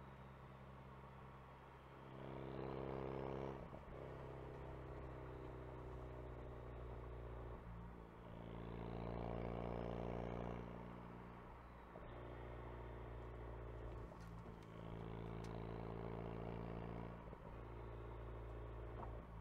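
Ford Focus RS engine heard from inside the car on the move, over a steady hum of road noise. It swells louder three times as the car accelerates, and each time drops back abruptly as the driver lifts off or changes gear.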